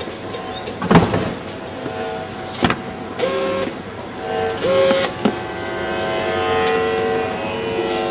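Electromagnetic emissions of a street parking-ticket machine picked up by a hand-held copper-wire loop antenna: steady electrical buzzing tones that switch and change around 3 and 5 seconds in, with sharp clicks about a second in, near 3 seconds and about 5 seconds in.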